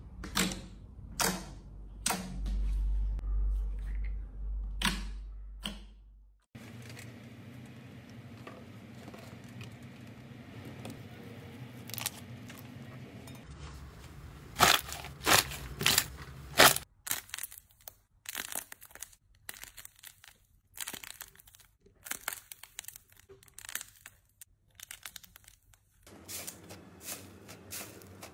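Hands squeezing and poking slime: sticky, wet pops and crackling clicks at irregular intervals, with a dense run of loud pops about halfway through.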